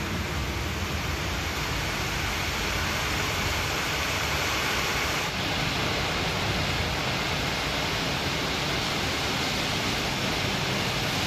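Steady rainfall, an even hiss with no break. The texture shifts slightly about five seconds in.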